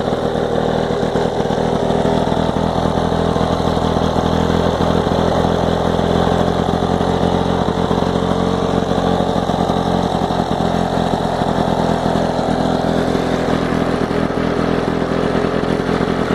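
Orange Bricktop Lawn-Boy mower's two-stroke engine running steadily at an even speed, staying running on its freshly rebuilt carburetor.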